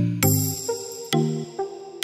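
Background music: electronic, synth-led track with chords struck on a steady beat of about two a second.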